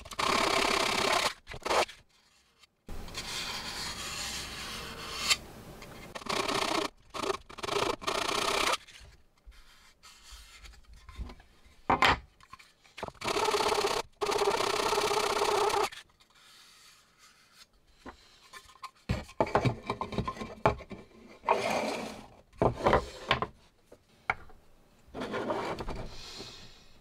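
A 3D-printed plastic (PLA) part rubbed back and forth on sandpaper to sand its edges smooth, in several loud stretches of a few seconds each that start and stop abruptly. In the last third, quieter broken rubbing and small clicks as the parts are handled.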